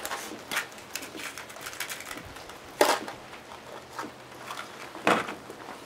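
Small clicks and knocks of hands working small parts, with two louder knocks about three and five seconds in.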